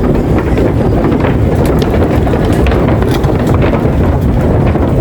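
Wind buffeting the microphone: a loud, steady, rumbling noise with scattered small clicks.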